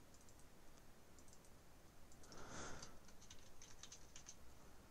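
Faint computer keyboard typing and mouse clicks, with a quick run of keystrokes about three seconds in and a soft hiss just before it.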